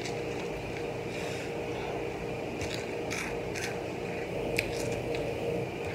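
Hot Cheetos being picked off a paper plate and eaten: short, scattered crackles and clicks, the sharpest a little over four and a half seconds in, over a steady low hum.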